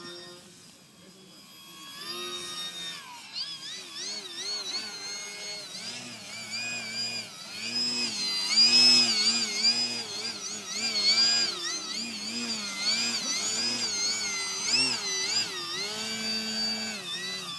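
Techone SU-31 RC model plane's electric motor and propeller whining in flight, the pitch rising and falling again and again as the throttle and passes change. Loudest about nine seconds in.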